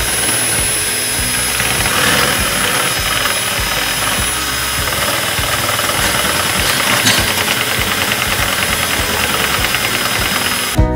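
Electric mixer running steadily, whipping cream and powdered sugar into frosting; it cuts off abruptly at the very end.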